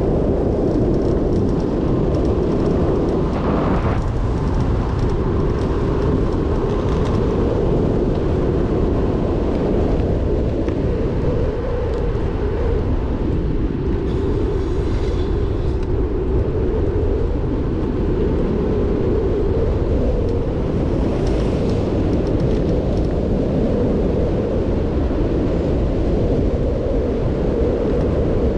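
Wind rushing over the microphone of a bicycle-mounted camera on a fast downhill ride: a steady, loud low rumble with no let-up, mixed with road and tyre noise.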